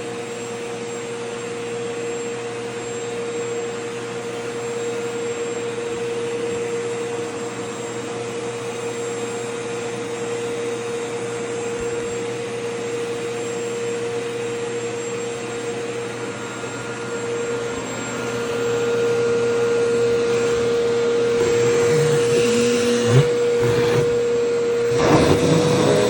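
Vacuum cleaner running steadily with a constant motor whine, its nozzle sucking at the fabric of a skirt. In the last few seconds it grows louder and rougher, with irregular fluttering and a few knocks as the cloth is drawn against the nozzle.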